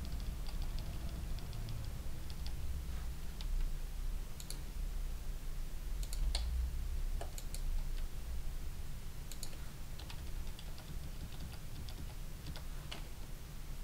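Computer keyboard keys and mouse buttons clicking: a quick run of key presses in the first couple of seconds, then scattered single clicks, over a steady low hum.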